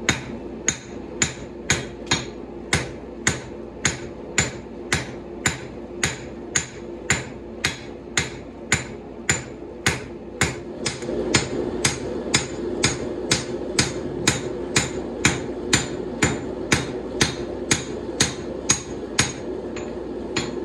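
Hand hammer striking a red-hot Damascus steel sword blade on an anvil in a steady rhythm, about two blows a second, each with a short metallic ring: hand forging the bevel into the blade.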